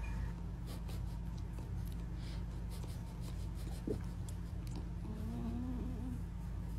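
Quiet room noise with a steady low hum, a few faint soft rustles and ticks, and a brief faint pitched sound about five seconds in.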